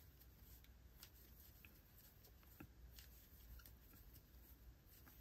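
Near silence with faint, scattered ticks and rustles of a crochet hook and yarn being worked into double crochet stitches.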